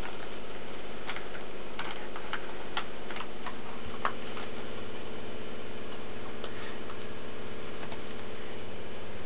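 Light-up plastic Christmas baubles being handled and tapped: irregular light clicks and knocks, about a dozen in the first half and a few later, over a steady hum.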